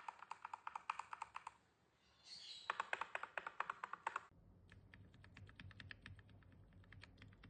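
Typing on a mechanical keyboard fitted with Gateron Milky Yellow Pro KS-3 linear switches: quick runs of keystrokes. About four seconds in, the typing turns quieter and sparser, with a low hum beneath.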